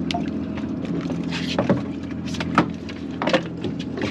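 Steady low hum on a small fishing boat, with about half a dozen short knocks and slaps as a halibut is handled and laid on the measuring board.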